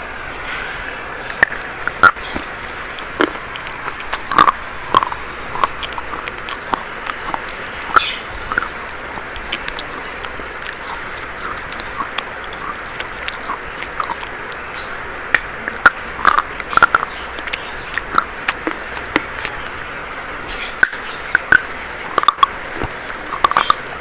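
Dry chalk being bitten and chewed: irregular sharp crunches, some in quick clusters, over a steady hiss.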